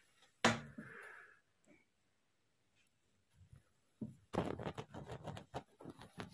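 A sharp knock, followed by a short hiss; after a quiet stretch, a quick run of clicks and knocks for about two seconds near the end.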